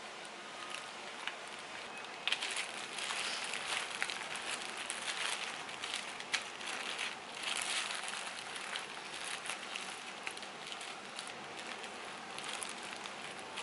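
Thin plastic food-prep gloves crinkling as hands press and spread cooked rice over a sheet of dried laver on a bamboo rolling mat: a dense crackle of small clicks and rustles over a steady hiss, busiest in the middle.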